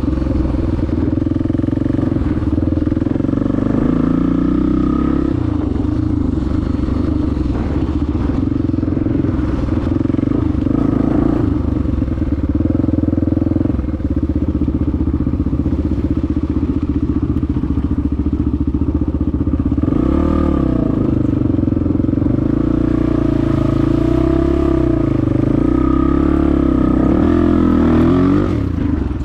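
Honda XR250R's single-cylinder four-stroke engine running steadily while the dirt bike is ridden along a trail. From about two-thirds of the way in, the engine note rises and falls a few times as the throttle is worked.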